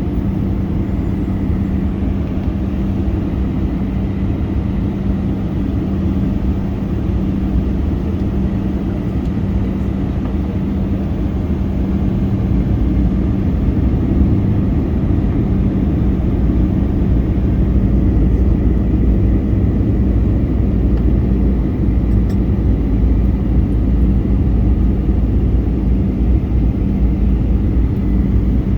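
Cabin noise of a Boeing 737-800 in flight: a steady drone of engines and airflow with a constant low hum, growing slightly louder about halfway through.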